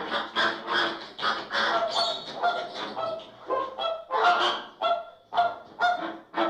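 A flock of flamingos honking, many short nasal calls overlapping in quick succession, about two or three a second.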